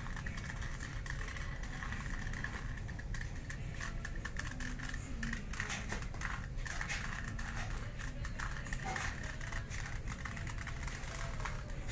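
Rubik's Cube being turned over and over by hand, its plastic layers clicking and clattering in quick, irregular runs, over a steady low room hum.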